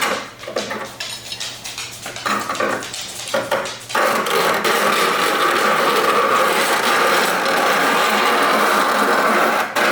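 A metal file scraping across the steel teeth of a Disston D-23 handsaw while jointing them flat to one height, the first step of sharpening. There are short scrapes and knocks at first, then about four seconds in one continuous rasping pass.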